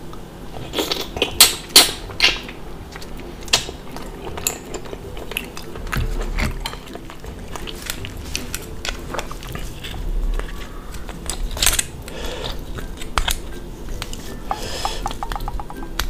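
Sharp clicks and scrapes of a metal seafood pick working against a hard shell to dig the meat out, with a quick run of small ticks near the end.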